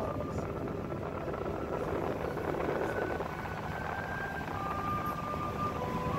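Steady mechanical drone of a tourist submarine's machinery, heard inside the passenger cabin, with faint thin whining tones coming and going in the second half.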